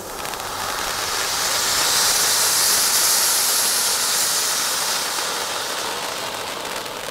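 Small 'Bonsai' ground fountain firework spraying sparks with a loud, rushing hiss. The hiss swells over the first two seconds, peaks around the middle, then slowly dies down as the fountain burns out.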